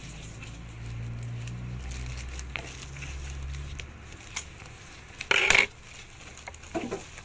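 A plastic courier mailer bag being cut with scissors and handled, crinkling, with small clicks. About five seconds in comes a short loud burst of plastic rustling as the bag is pulled open.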